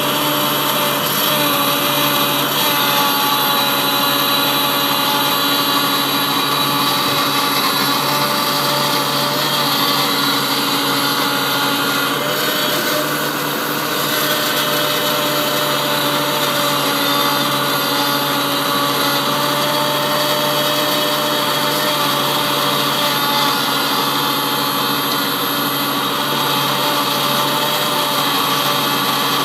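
New Holland TV-140 tractor's diesel engine running steadily at a constant speed.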